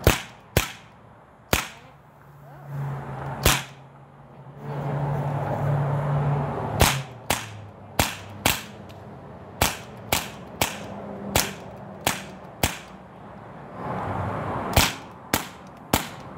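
BB gun fired repeatedly at a shaken-up Coke can: about seventeen sharp shots at uneven spacing, some in quick pairs.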